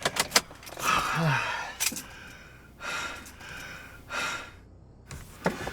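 A man breathing out hard in a few heavy breaths and sighs, with a short grunt about a second in. A few sharp clicks come at the start and near the end.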